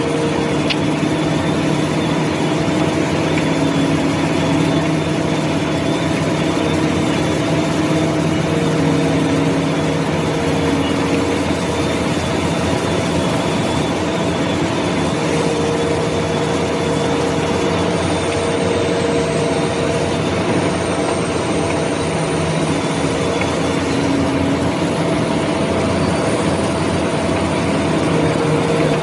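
Heavy diesel machinery of a floating coal-loading crane and its Hitachi EX1200 excavators running at work: a constant loud drone with several steady hum tones that fade in and out every few seconds, and a faint high whine above.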